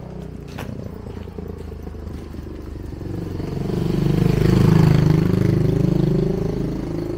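A motor vehicle passes close by: its engine grows louder, is loudest about two-thirds of the way in, with its pitch dropping as it goes past, then fades.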